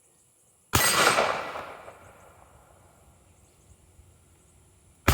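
A pistol shot about 0.7 s in, its report dying away over about a second, and a second shot right at the very end.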